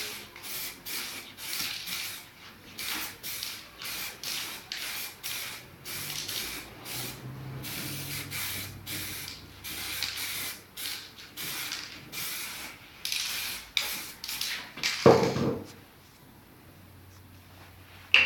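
Aerosol spray paint can hissing in rapid short bursts, about two a second, as white paint is sprayed onto the canvas. The bursts are followed by a single heavy thump, then a sharp click near the end.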